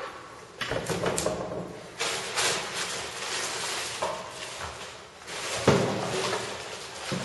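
Clear plastic bag rustling and crinkling as hands grip and turn a heavy subwoofer wrapped in it, with a few dull knocks as the cabinet shifts on a hard floor, the loudest about two-thirds of the way through.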